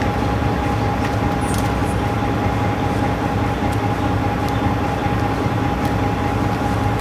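Steady mechanical drone with a constant hum that holds one pitch throughout, cutting off abruptly at the very end.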